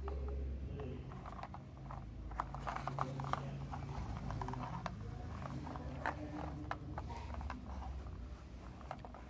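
Irregular small clicks and taps of a toy semi-truck being pushed and handled on a carpet, its wheels and body knocking lightly.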